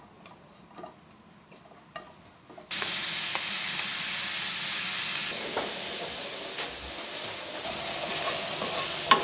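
Diced bacon frying in a dry nonstick frying pan, rendering in its own fat. At first only a few faint clicks of a wooden spatula stirring the pieces, then about three seconds in a loud, steady sizzle starts abruptly.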